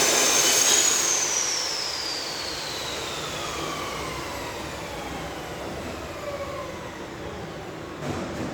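A high-speed power tool's motor, running with a high whine, is switched off about a second in and spins down, its pitch falling steadily for several seconds. A short knock comes near the end.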